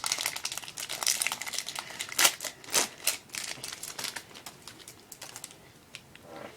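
Wrapper of a hockey card pack crinkling and tearing as it is ripped open by hand, a dense crackle that thins to a few light rustles after about four seconds.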